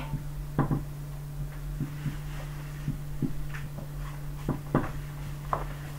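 Marker pen writing on a whiteboard: short, scattered scratches and taps as the letters are stroked on, over a steady low hum.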